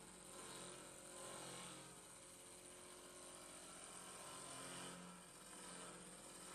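Faint steady hum of a CNC machining centre running, several steady tones under a light hiss, swelling and easing slightly now and then.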